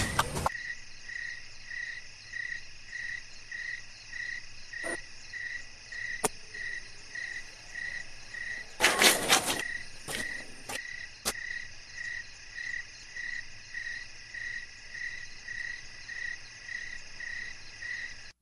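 Crickets chirping steadily at about two chirps a second over a high, even insect hum. A few single sharp knocks and a louder burst of scuffs about nine seconds in: footsteps on a concrete floor.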